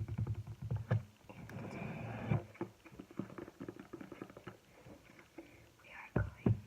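Slime being squeezed and worked by hand: irregular wet squelches and clicking pops, with a couple of sharper pops near the end.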